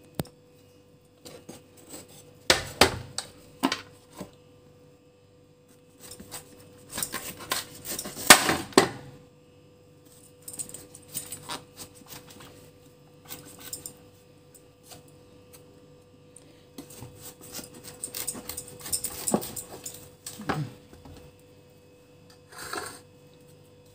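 A kitchen knife scraping seeds and stringy pulp out of a halved pumpkin, in irregular bursts of scraping with knocks of the blade and pumpkin against a wooden cutting board.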